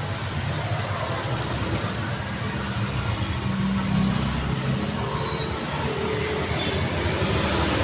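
Steady highway traffic: the continuous noise of passing vehicles' engines and tyres, with a low engine hum underneath, growing slightly louder near the end.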